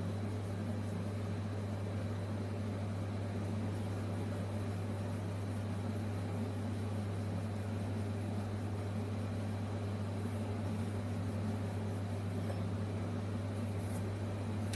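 A steady low hum, even and unchanging, like a fan or appliance motor running. A few faint light taps of a rolling pin on dough sound over it.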